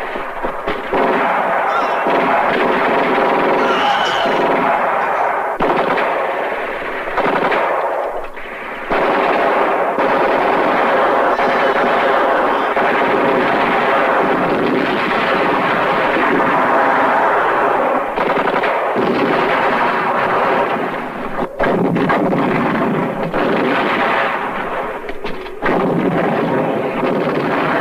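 War-film battle sound: dense, unbroken machine-gun and rifle fire with artillery, the mix jumping abruptly at a few scene cuts.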